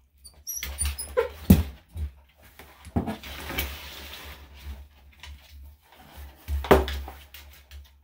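Small Yorkshire terrier whimpering and scuffling as it struggles against a nail trim, with sharp clicks and knocks, the loudest about a second and a half in and again near the end.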